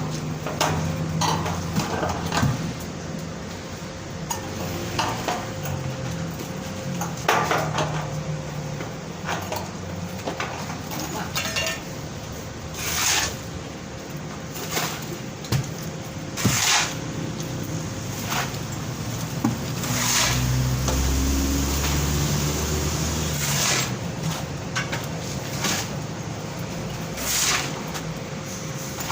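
Scattered clinks and knocks, like dishes or metal objects being handled, over a faint steady hum.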